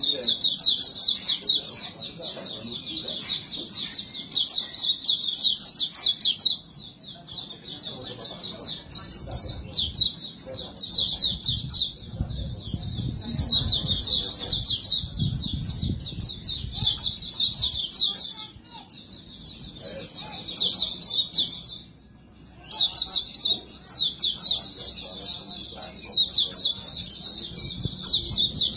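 White-eye (pleci) singing a long, rapid, high-pitched twittering song in near-continuous phrases, with a short break about two-thirds of the way through.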